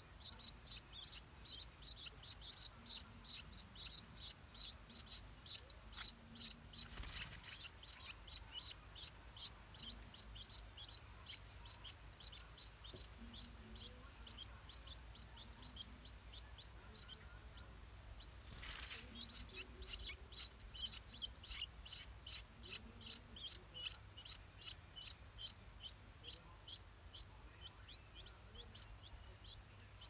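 Stripe-throated bulbul nestlings begging: a rapid, even series of short high-pitched chirps, about three a second. Two brief whooshes come through about seven and nineteen seconds in.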